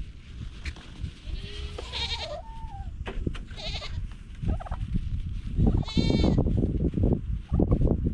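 Goats bleating, about four separate calls, over a low rumble with a few knocks.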